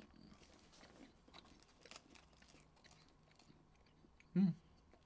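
Faint chewing of a Bounty coconut chocolate bar, with soft mouth clicks scattered throughout and a short hum of voice about four seconds in.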